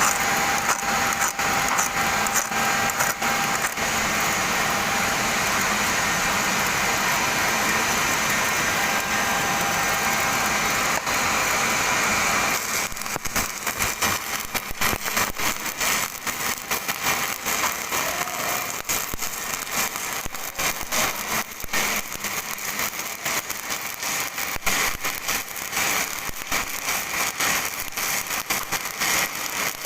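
Welding arc burning: a steady hiss for roughly the first twelve seconds, then an irregular sputtering crackle for the rest.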